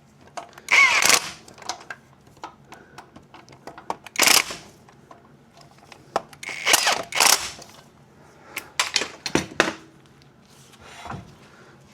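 A handheld power tool run in short bursts: about a second in, around four seconds, twice in quick succession near seven seconds and again near nine, with light metallic clicks of tools and parts between the bursts.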